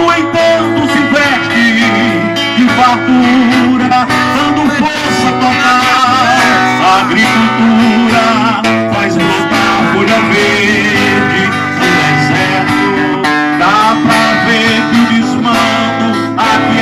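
Loud amplified live music led by acoustic guitar, played through a PA sound system.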